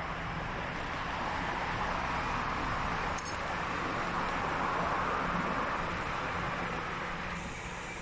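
Steady city road-traffic noise heard from a moving bicycle, swelling a little midway, with a faint click about three seconds in.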